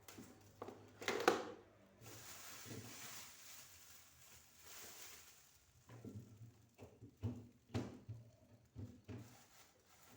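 Refrigerator being emptied and cleaned by hand: a sharp knock and clatter about a second in, a few seconds of steady hiss, then a run of light knocks and taps from shelves, drawers and containers being handled in the second half.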